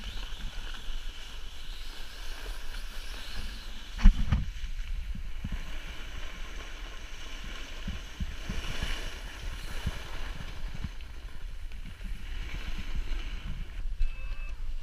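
Wind rushing over an action camera's microphone while snowboarding, with the board sliding over packed snow. A single sharp knock comes about four seconds in, and a short high beep near the end.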